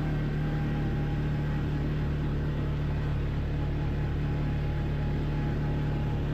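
Quad bike engine running at a steady speed while riding. The pitch and level stay constant throughout.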